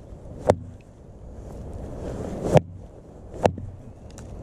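Hatchet splitting a short firewood log over a wooden stump: a few sharp, unevenly spaced wooden knocks as the log is struck down on the block until it splits in two.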